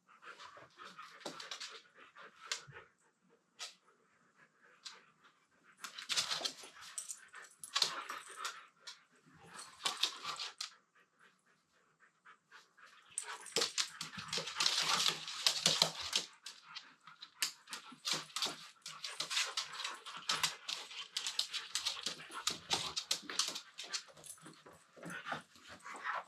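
Two Siberian huskies play-wrestling: scuffling bursts of rapid clicks and rustling noise that come and go, busiest about halfway through.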